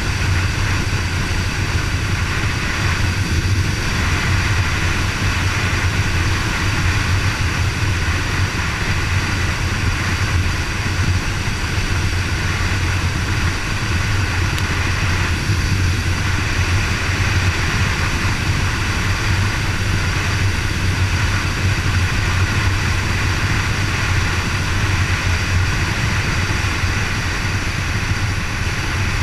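Kawasaki KLR650's single-cylinder four-stroke engine running steadily at cruising speed, over a steady rush of wind and road noise.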